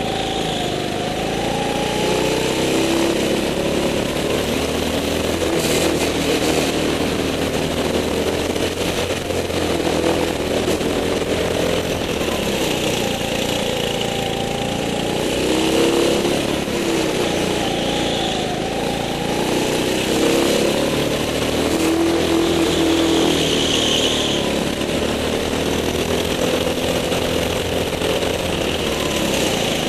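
Onboard sound of an indoor go-kart's engine during a lap, its pitch rising and falling over and over as it revs up on the straights and drops back for the corners.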